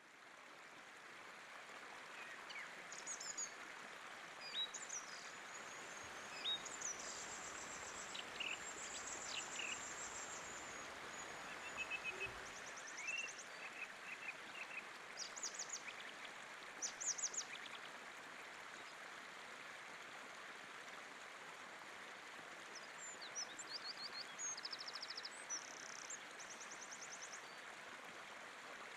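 A shallow, rocky river running over stones, a steady rush of water that fades in at the start. Small birds call and sing over it with short high chirps and trills, busiest in the first half and again near the end.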